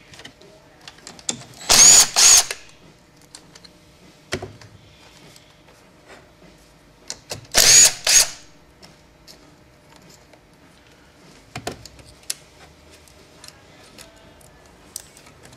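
Handheld power drill-driver spinning bolts out of the transmission housing in short bursts, two quick bursts about two seconds in and two more about eight seconds in. Scattered clicks and clinks of parts and tools in between.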